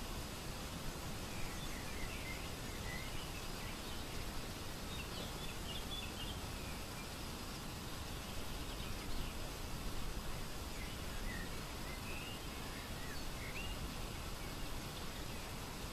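Steady wind noise buffeting the microphone, with small birds chirping briefly every few seconds.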